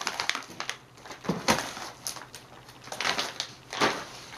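Crinkling and crackling of plastic packaging, a clear plastic bag and a black plastic container, handled in about four short bouts.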